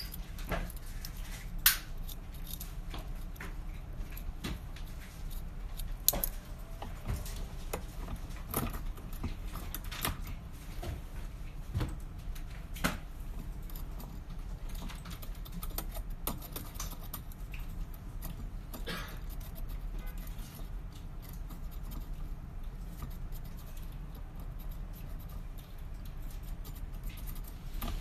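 Irregular small metallic clicks and scrapes of an AKK KW5 2-in-1 pick being worked in a Kwikset lock cylinder, with a few sharper clicks, over a steady low hum.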